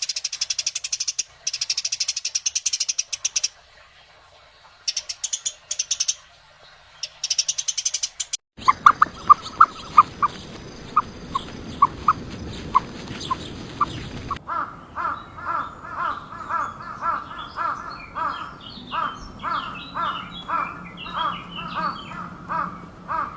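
A run of different animal calls. First comes a fast, high buzzing trill in bursts for about eight seconds. Then sharp chirps repeat at an uneven pace over a steady high whine. From about fourteen seconds in, calls repeat evenly about twice a second.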